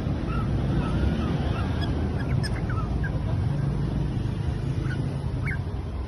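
Cockatiels giving short, scattered chirps, a few at a time, over a steady low rumble of street traffic.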